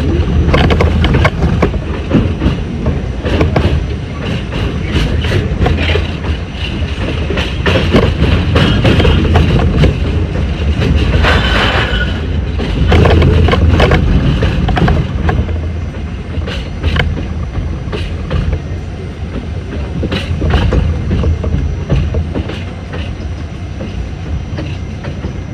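R68 subway train running at speed: a steady low rumble of wheels on rail with many sharp clicks from the rail joints, and a brief high wheel squeal about eleven seconds in.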